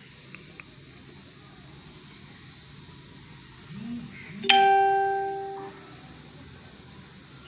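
Smartphone notification chime, a single bell-like tone that rings out and fades over about a second, as the OTP text message arrives. A steady high-pitched insect drone, like crickets, runs underneath.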